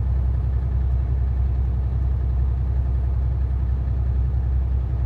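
Steady low rumble of a car driving at speed, engine and tyre noise heard from inside the cabin.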